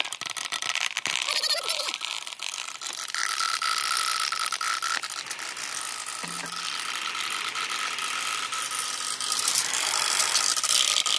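Glass marbles rolling down a wet plastic rain gutter and clacking against each other and against the marbles in the tray below, a dense run of irregular clicks over the steady rush of running and splashing water.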